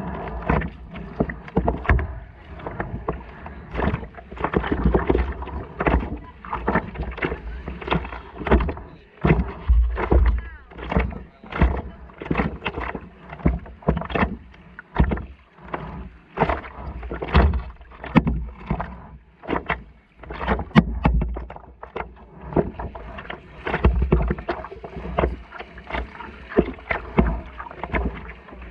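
Water slapping and splashing against a stand-up paddleboard right at the microphone, an irregular run of short knocks and splashes with heavy low thuds, as the paddle works in the shallow water.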